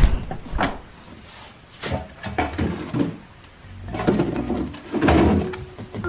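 A refrigerator door opening and shutting, with a series of separate knocks and clunks as plastic food containers are handled.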